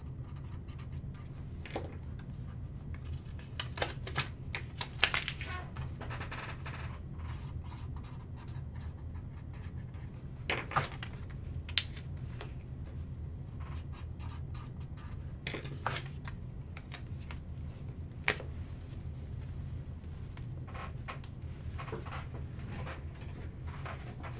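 Trading cards and their packaging being handled on a table: scattered clicks, taps and scrapes over a steady low hum.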